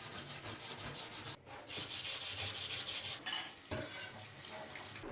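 A steel wool pad scrubbing a steel knife blade in a stainless steel sink: fast rhythmic rubbing strokes broken by short pauses, with wetter sloshing scrubbing near the end.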